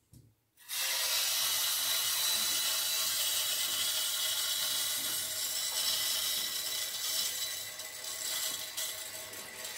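Water hissing through a partly opened main ball valve and copper supply pipe as the drained house plumbing refills. The hiss starts suddenly under a second in, holds steady and eases a little near the end.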